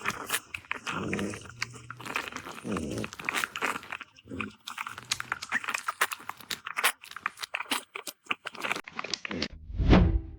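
Rapid, irregular crunching and chewing: a puppy chewing on something hard. A loud low thud comes near the end.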